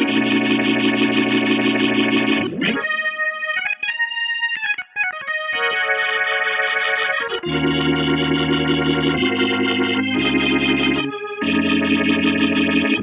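Sampled vintage organ (Native Instruments / Scarbee Vintage Organs) played from a keyboard: held chords, a quick sweep about two and a half seconds in, then a few sparse notes. From about seven and a half seconds in come full chords over a bass line that changes every second or so.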